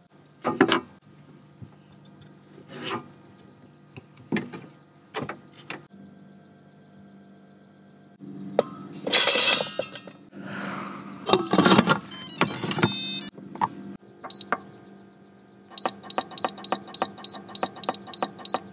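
A knife chopping red potatoes on a cutting board in a few separate knocks. About nine seconds in, the potato pieces clatter as they slide into the stainless steel inner pot of an Instant Pot. Near the end the Instant Pot's control panel beeps once for each button press, in a quick run of about ten beeps as the cooking time is set.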